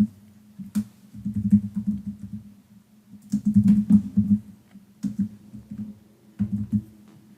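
Computer keyboard keys clicking and tapping in several short, irregular bursts.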